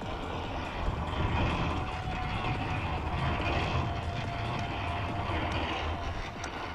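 Bicycle rolling over rough dirt and gravel, giving a steady low rumble with wind noise on the bike-mounted camera's microphone. A faint steady whine runs through the middle of it.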